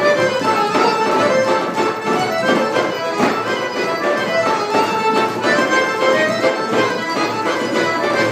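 Live accordion playing a lively traditional folk dance tune, with a steady percussive beat under the melody.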